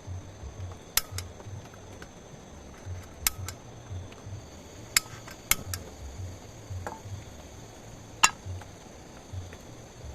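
A series of sharp, ringing clinks at uneven intervals, several of them in quick pairs, over irregular low thumps and a faint steady high-pitched drone.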